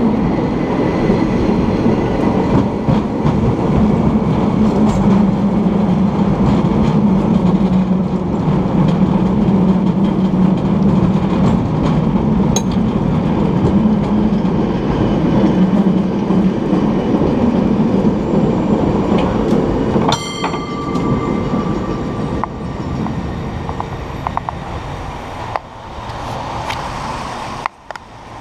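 San Francisco cable car running along its rails with a loud, steady rumble from the car and its cable. About 20 s in there is a single metallic ring that fades over a couple of seconds, and the rumble then grows quieter as the car slows.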